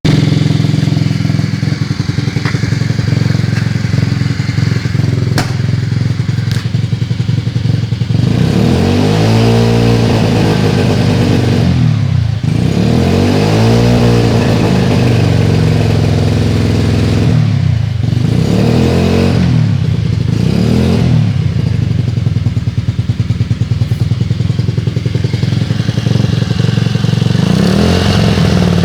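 Yiying scooter engine idling steadily for about eight seconds, then revved up and let fall back several times, settling to idle between the blips.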